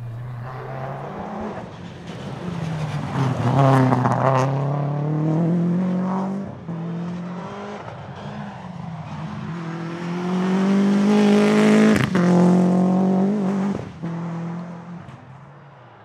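Toyota Celica GT-4 ST165 Group A rally car's turbocharged 2.0-litre four-cylinder engine revving hard as the car accelerates past. The pitch rises, drops at each gear change and climbs again. It is loudest about four seconds in and again near twelve seconds, where there is a sharp crack.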